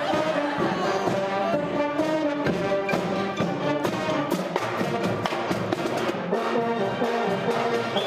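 A high-school marching band playing a lively tune: trombones, trumpets and other brass over marching drums with a steady beat.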